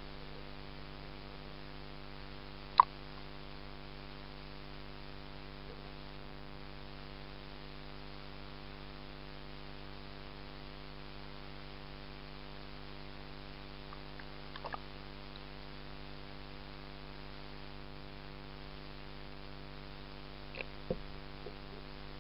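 A steady electrical hum with many layered tones. One sharp click comes about three seconds in, and a few faint taps come near the end.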